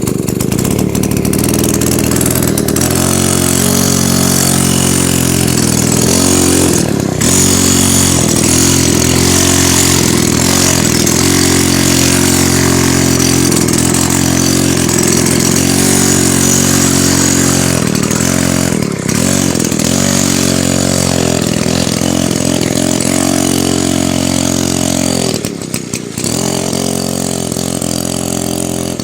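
Single-cylinder two-stroke engine of a Druzhba chainsaw, powering a homemade snow scooter, running steadily and loud, its pitch wavering briefly a few times and dropping for a moment near the end.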